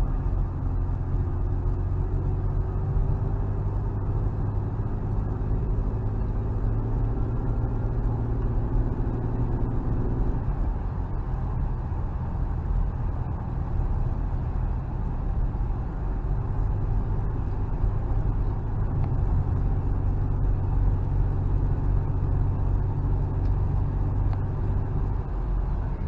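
A 1992 Toyota Aristo's 2JZ-GTE twin-turbo 3.0 L straight-six, with an Apexi performance exhaust, running under way, heard from inside the cabin over steady road noise. The engine's hum eases about ten seconds in and picks up again several seconds later.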